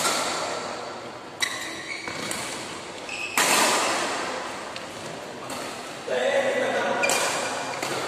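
Badminton rackets striking a shuttlecock during a doubles rally, each sharp hit ringing on in a large hall; there are four hits at uneven intervals, the loudest about three and a half seconds in.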